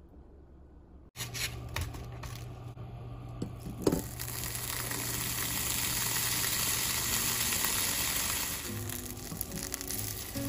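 Salmon fillet frying in a non-stick frying pan: after a few light clicks, a steady sizzle starts about four seconds in and builds. The fillet is a frozen lightly salted one.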